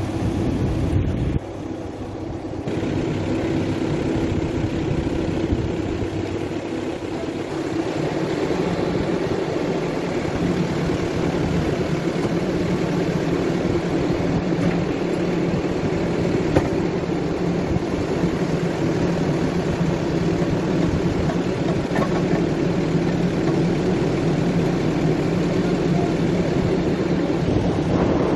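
Backhoe loader's diesel engine running steadily at constant speed close by, with a brief drop in level about a second and a half in.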